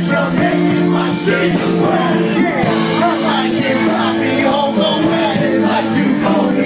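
Live rock band playing, a voice singing over held electric guitar chords with a steady beat.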